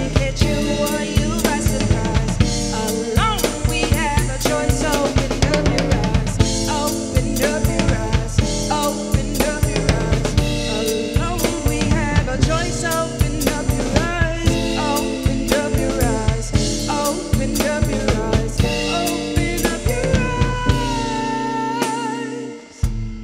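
Live blues band playing: a woman singing lead over electric guitar and a drum kit with a steady snare and bass-drum beat. Near the end she holds one long wavering note, and then the band briefly drops off.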